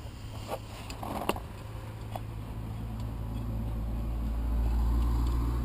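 A motor vehicle's low rumble that swells steadily louder over a few seconds, with a few light clicks in the first couple of seconds.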